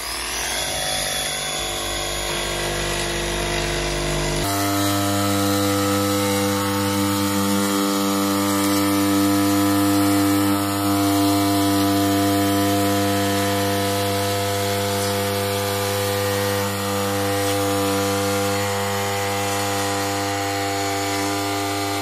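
Festool cordless insulation saw running on a guide rail and cutting through foil-faced PIR insulation board: a steady, loud, whining drone. Its tone shifts abruptly about four and a half seconds in.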